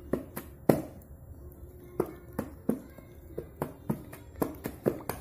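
A child's hands striking a plastic toy drum in uneven hits, roughly two a second, with a pause of about a second near the start.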